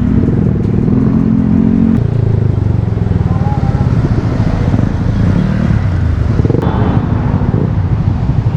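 Motorcycle with an open VMAX aftermarket muffler running loud, its engine pitch shifting and dropping about two seconds in.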